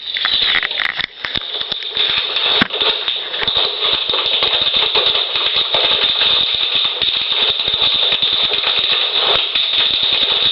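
Loud, dense crackling static made of rapid irregular clicks: the annoying noise that spoils the replay of a video inside the video.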